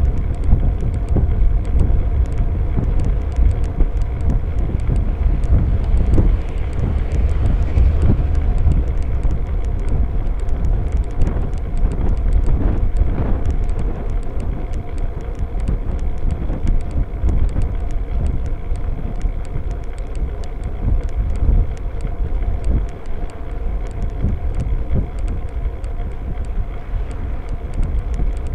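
Wind buffeting the microphone of a seatpost-mounted rear camera light on a moving bicycle, over a steady rumble of tyres on tarmac, with many small rattling ticks from the mount. A passing car swells briefly about twelve seconds in.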